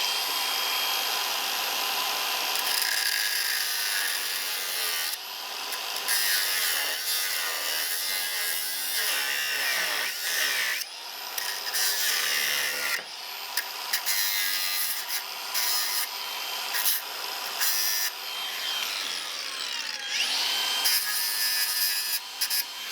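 Power tool cutting copper rod to length for bolts: a steady rasping cut with a high motor whine that stops and starts several times and winds down in pitch near the end.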